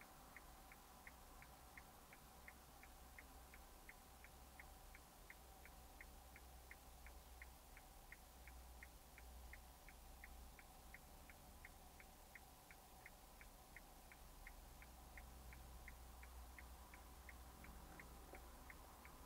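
A car's turn-signal indicator relay ticking faintly and evenly, about three ticks a second, over a low steady hum.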